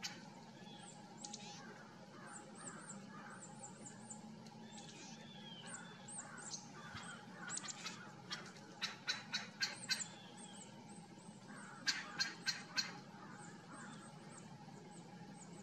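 A bird calling in two quick runs of short, high piping notes, about four a second, the louder run around nine to ten seconds in and another around twelve seconds in, over fainter high chirps from other small birds.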